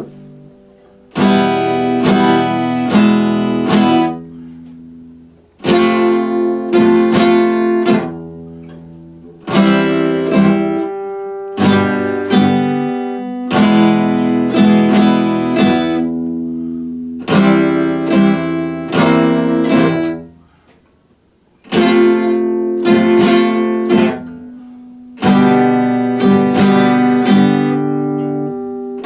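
Epiphone acoustic guitar strummed in short phrases of chords, a new phrase about every four seconds with the chords left ringing between them. It drops almost to quiet for a moment about two-thirds through.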